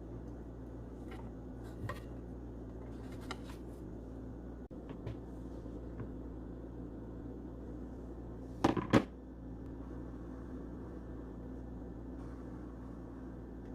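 A steady low hum with a few light clicks, and a brief double clatter, like something set down hard, about nine seconds in.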